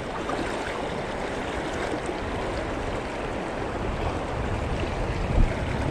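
River current rushing steadily over a shallow, riffled run.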